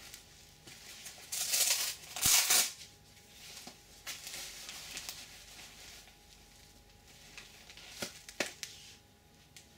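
Goalkeeper gloves being handled: fabric and latex rustling and crinkling, with two louder bursts between about one and a half and two and a half seconds in, then a few lighter rustles.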